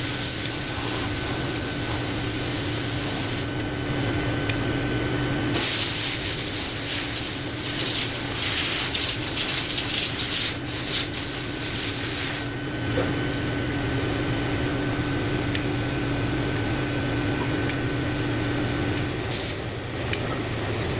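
Steady rushing hiss over a low hum, the hiss growing louder for several seconds at a time and dropping back abruptly, with a few faint clicks.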